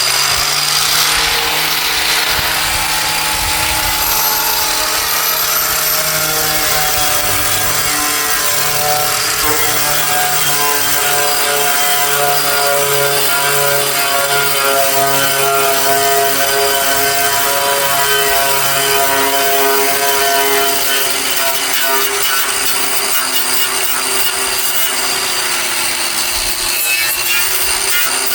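A handheld power tool running continuously, grinding rust and old paint off the metal of an antique concrete mixer, with a steady motor whine over the abrasive rubbing. The pitch dips briefly near the end as the tool is pressed harder.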